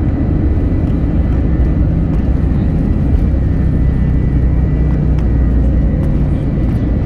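Airbus A321 on its takeoff roll, heard from inside the cabin: a loud, steady rumble of the engines at takeoff thrust and the wheels on the runway, with a thin steady whine above it.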